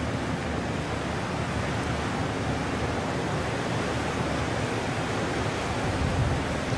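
Steady rushing of churned water stirred up by a harbour tugboat's propeller wash in a ship lock, with a faint low hum underneath.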